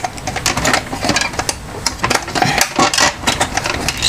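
Hard plastic parts inside an Epson L3210 printer's mechanism clicking and knocking irregularly as a stuck white plastic part is pulled and worked by hand.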